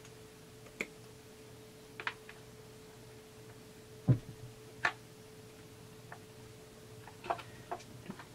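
Scattered light clicks and knocks of small metal engine parts, a chainsaw piston and wrist pin, being fitted by hand onto the connecting rod in the crankcase. The loudest is a knock with a dull thump about four seconds in. A steady faint hum runs underneath.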